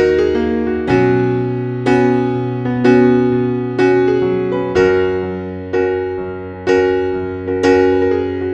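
Soft piano music: a chord struck about once a second, each one ringing out and fading, over a held bass note.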